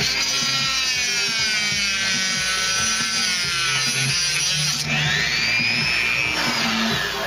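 High-speed rotary tool with a cut-off wheel cutting through a rusted, seized bolt: a high whine whose pitch sags as the wheel bites and climbs again as it frees up, with a second dip and recovery a little over halfway through. Background music runs underneath.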